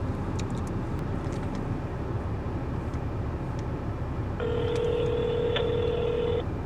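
Telephone ringback tone: one steady two-second ring of an outgoing call, over a low steady rumble.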